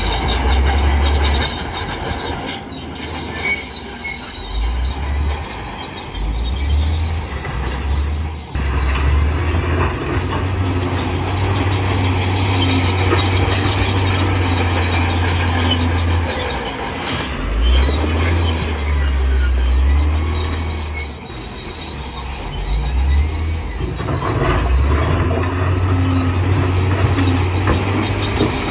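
Heavy diesel earthmoving machinery at work: a deep engine rumble that rises and falls in surges of a few seconds, with high metallic squealing over it.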